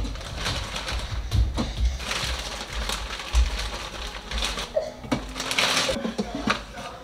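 Kitchen clatter during breakfast preparation: scattered clicks and knocks of cookware and packaging being handled, with rustling and a few low thumps.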